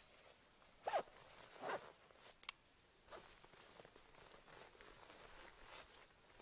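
Backpack straps being cinched: webbing pulled through the buckles in two quick zipping pulls, then the sharp click of a buckle snapping shut a little later. Fainter rustles of the straps and pack follow.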